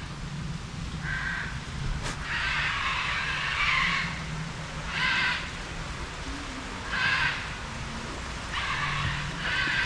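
A series of harsh animal calls, six or so short squawks at irregular intervals of one to two seconds, over a low steady hum.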